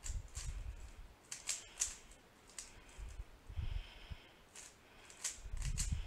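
YJ 3x3 speedcube being turned rapidly by hand: irregular sharp plastic clicks as its layers snap round, with a few dull low bumps as it is handled.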